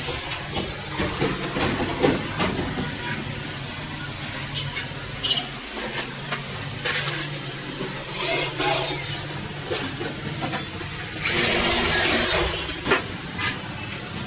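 Electric drill driving screws into the steel ceiling frame in short runs, the longest about a second long near the end. Knocks and taps come from the wood-plastic panels being handled against the frame.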